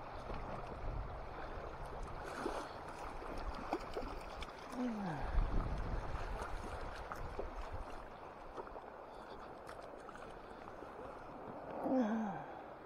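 Shallow river running over a gravel bed: a steady rush of water, with low rumbles that swell about five seconds in. A person's short low falling hum comes twice, about five seconds in and near the end.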